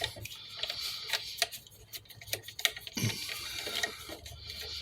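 Irregular small clicks and ticks of a screwdriver and wire ends being worked at the terminal screws of a household wall switch, a few a second, with a slightly heavier knock about three seconds in.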